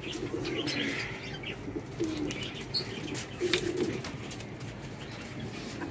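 Domestic pigeons cooing over and over in low warbling phrases, with scattered clicks and wing flaps as birds come in to land at the loft.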